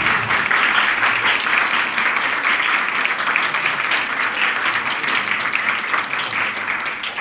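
A roomful of seated students applauding, many hands clapping together in an even patter that eases off slightly near the end.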